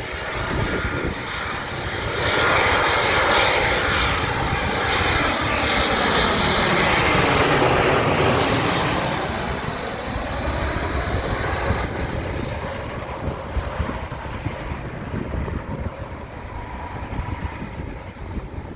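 Jet airliner passing close by: its engine noise builds, is loudest for several seconds with a swooshing sweep as it goes past, then fades.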